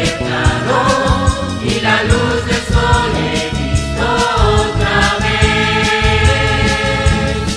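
A religious song with a choir of voices singing over instrumental backing and a steady beat.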